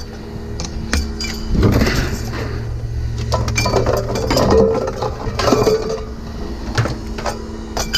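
Pieces of scrap metal clinking and knocking as they are handled, in short irregular bursts over a steady low hum.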